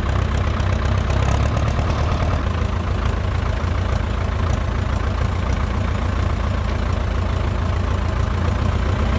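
Ursus C-360 tractor's four-cylinder diesel engine running steadily as the tractor drives along at an even pace.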